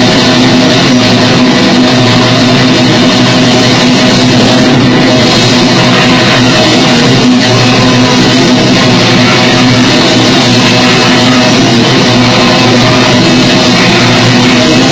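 Grindcore band playing at full tilt: heavily distorted guitars and fast drums in a dense, loud, unbroken wall of noise.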